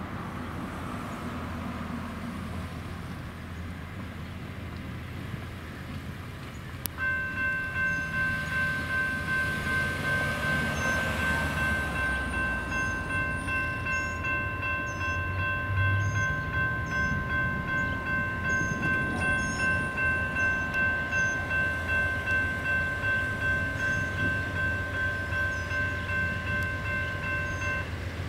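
A railroad grade-crossing warning bell comes on with a click about seven seconds in, then rings steadily at about two strokes a second as the crossing activates for an approaching Amtrak diesel locomotive, whose low rumble runs underneath. Birds chirp faintly.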